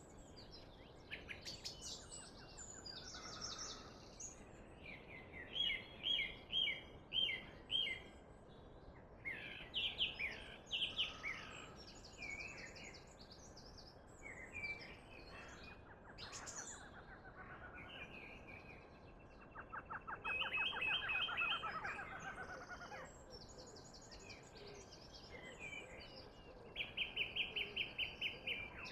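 Several birds singing and calling in a forest, a mix of chirps, repeated note series and fast trills, one trill falling in pitch about two-thirds of the way through, over a faint steady hiss.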